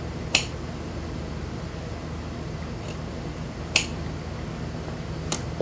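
Large steel tailor's shears cutting through suit-jacket wool: three crisp metallic snips a few seconds apart, over a low steady hum.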